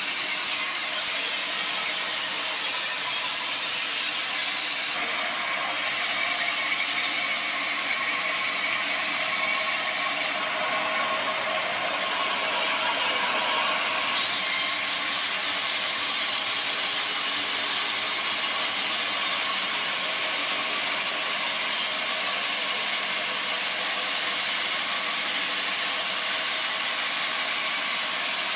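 Sawmill saw running through a mahogany log: a steady, dense high hiss of machine noise, shifting slightly a few times as the cut goes on.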